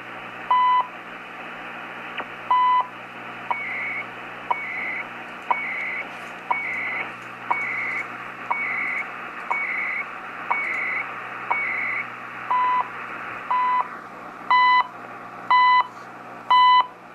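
Shortwave time-signal station CHU Canada on 14.670 MHz, heard through a Realistic DX-302 receiver over steady hiss: a beep every second, with one beat missing. About three seconds in, the beeps shrink to short ticks, each followed by a higher warbling data burst that carries the time code, and the longer once-a-second beeps return near the end.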